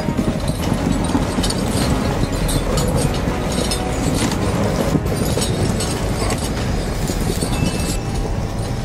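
LKT 81 T forestry skidder's diesel engine running steadily as it drags a bundle of logs, with short metallic clinks from its tyre chains and log chains.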